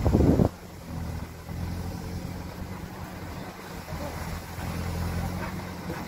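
Diesel engine of a JCB 4CX backhoe running steadily at a distance as it works its boom digging mud, a low even hum. A brief loud rush of wind on the microphone in the first half second.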